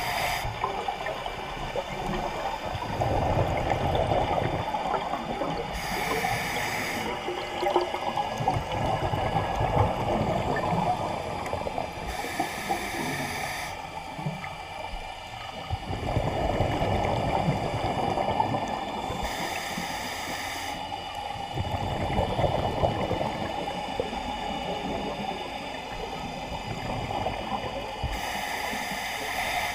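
Scuba diver breathing through a regulator underwater: a short hiss of inhaling about every six to seven seconds, alternating with longer gurgling stretches of exhaled bubbles.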